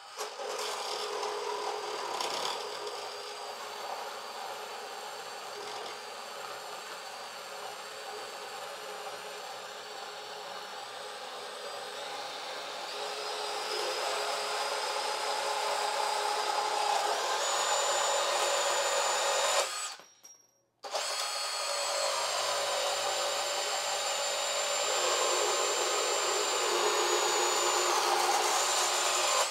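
DeWalt 20V MAX Atomic DCS377 compact cordless bandsaw running steadily. It breaks off for about a second roughly twenty seconds in, then runs again.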